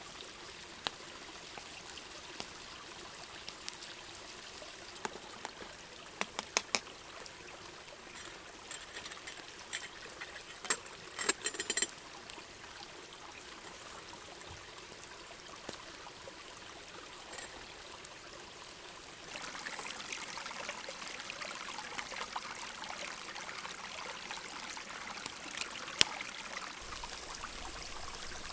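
A small brook babbling steadily, with scattered sharp clicks and ticks over it, a quick run of them a little before the middle. A little past halfway the hiss gets louder and stays that way.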